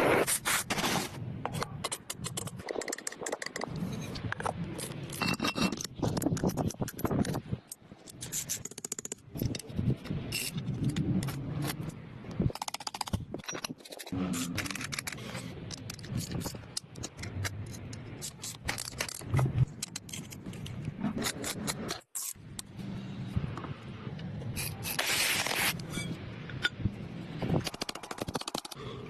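Repeated scraping and rubbing strokes, coarse and irregular, in several passages with abrupt cuts between them.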